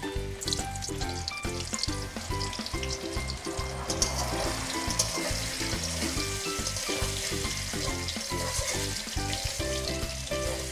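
Paneer cubes sizzling as they fry in hot oil and ghee in a kadai, a steady crackle that thickens about four seconds in as a spatula turns the pieces over. This is the light frying stage, before the paneer is lifted out lightly browned.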